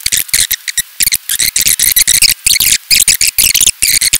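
Loud, scratchy rustling of a clip-on microphone rubbing against clothing: a dense, irregular run of crackles that cuts off abruptly just after the end.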